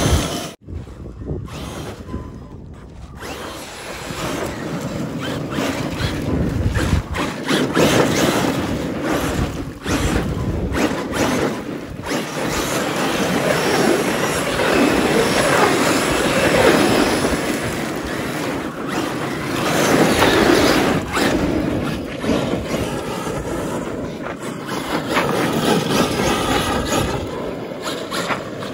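Traxxas X-Maxx electric RC monster truck driving and sliding on loose dirt, its tyres churning and spraying dirt and its motor whining. The sound swells and fades as the truck speeds up and slides, with two brief drop-outs in the first few seconds.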